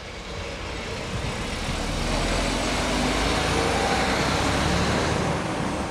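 A large touring coach driving past at close range and pulling away, its engine rumble and tyre noise swelling over the first couple of seconds, holding, then easing off near the end.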